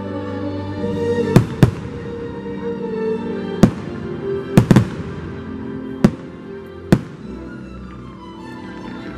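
Aerial firework shells bursting with about seven sharp bangs, some in quick pairs, over the show's holiday music.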